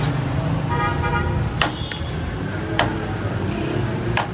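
Busy street traffic rumble with a vehicle horn tooting briefly about a second in, and a few sharp clicks.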